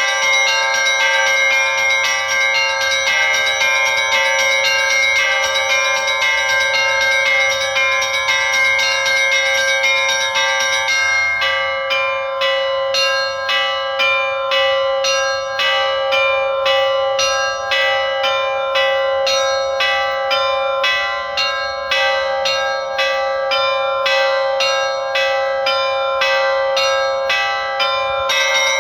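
Russian Orthodox church bells rung by a single ringer: a rapid peal of small bells over a steady, lingering tone of a larger bell. About eleven seconds in, the rapid ringing thins to a slower, even beat of strikes, roughly two a second, and it turns dense again near the end.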